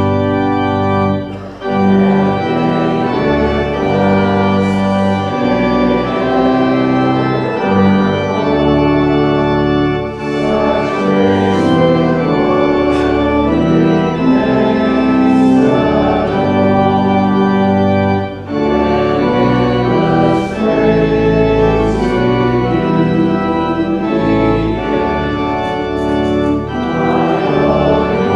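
Church organ playing a hymn in sustained chords, with brief breaks between phrases, accompanying a congregation singing.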